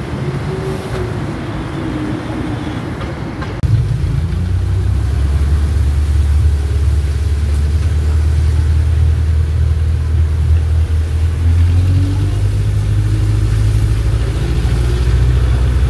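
Street traffic noise, then from about four seconds in the steady low drone of a passenger jeepney's diesel engine heard from inside while riding, its pitch rising and falling a few times as it changes speed.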